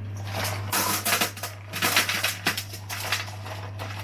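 Frozen hash-brown crunchies being tipped from their bag onto a baking tray: an irregular clattering rattle of many small hard pieces, over a steady low hum.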